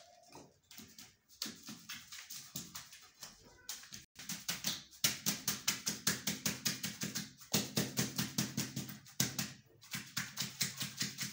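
A wooden float is worked over wet sand-and-cement mortar in a brick mould in quick rhythmic strokes, about five a second, to compact and level it. A faint low hum runs under the middle stretch.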